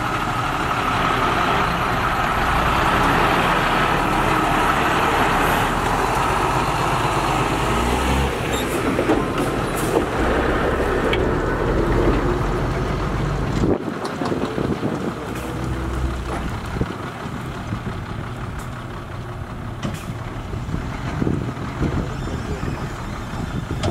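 Heavy diesel dump trucks running: loud and steady for the first several seconds as one pulls away, then easing as another, its bed tipped high, lets a load of dirt and rocks slide out with scattered knocks and clatter.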